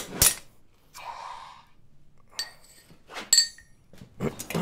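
Hammer striking a slot punch driven through a red-hot steel bar on the anvil: two hard blows at the start, a short hiss about a second in, then several lighter ringing metal clinks as the sheared slug is worked free.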